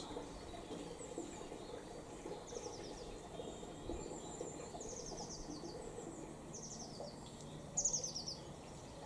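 Small birds chirping: about five short, high trills that fall in pitch, the loudest a little before the end, over a faint steady low background hum.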